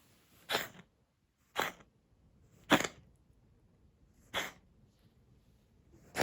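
Brown tabby cat coughing: five short, sharp coughs a second or more apart. The cough of a cat with asthma.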